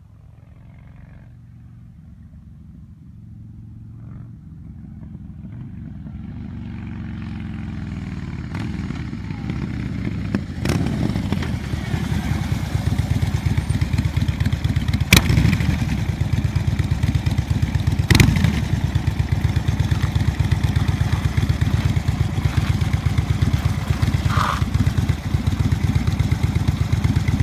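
Harley-Davidson Street Bob's V-twin engine through a Vance & Hines exhaust, growing steadily louder over about ten seconds as it comes closer. It then runs close by with a steady deep rumble, with a few sharp clicks.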